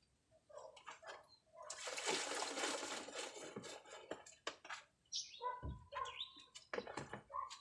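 Water splashing and trickling during a hand car wash, with a louder rush of water for about two seconds near the start, and scattered small splashes and knocks.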